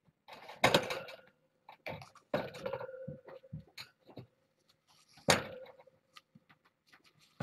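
Scattered knocks and clatters from kittens playing with toys on the floor. The loudest comes about five seconds in, and the strongest knocks are followed by a short ringing tone.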